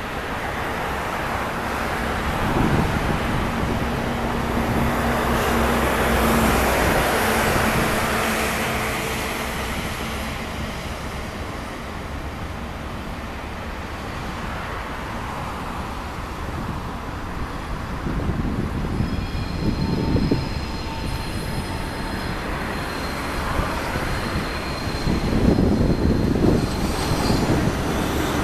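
Diesel commuter train climbing the grade out of a tunnel as it approaches: a steady engine drone, thin high-pitched wheel squeal for a few seconds past the middle, and the rumble growing louder near the end as it draws close.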